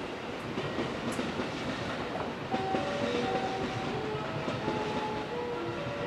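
Steady hum of a JR West 683 series train standing at a platform. From about two and a half seconds in, a melody of short electronic chime notes plays, stepping up and down in pitch.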